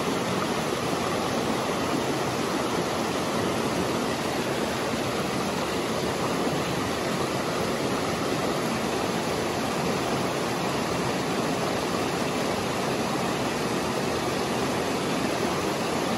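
Water of a shallow, rocky stream running over stones in small riffles and cascades: a steady, even rush.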